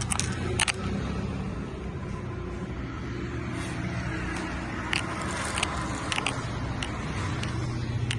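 Steady low rumble of road traffic, with a few short sharp clicks about half a second in and again a little past the middle.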